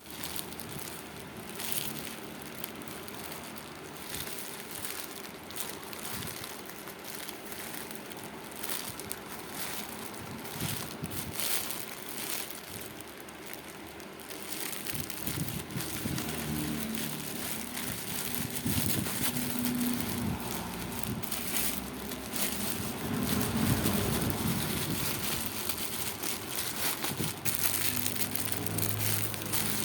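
Parcel packaging being handled and opened: plastic and paper crinkling and rustling in a run of irregular crackles, getting busier and louder in the second half.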